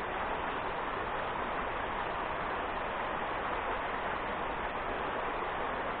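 River rapids: water rushing over rocks, a steady, even noise.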